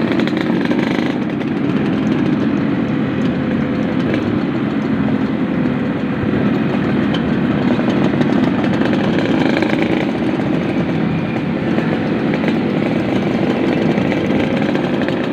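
Yamaha RX-King two-stroke single-cylinder motorcycle engine running under way at a fairly steady speed, its note drifting only slightly in pitch.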